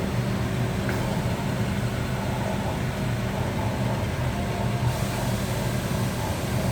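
Steady hum of a Huron K2X8-F 5-axis machining centre running, with one faint tick about a second in.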